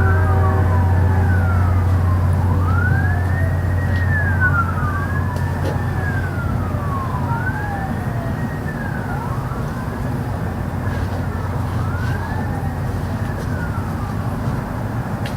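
A siren wailing, its pitch rising and falling in repeated overlapping sweeps about every two seconds. A steady low hum runs underneath and weakens about four seconds in.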